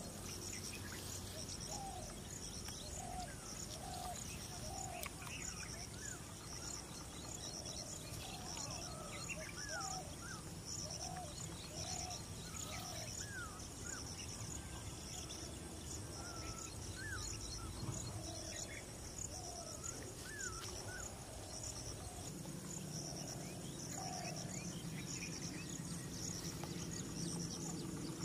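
Pond-side ambience: an insect chirping in a steady, even rhythm, with short bird calls scattered throughout over a low background rumble.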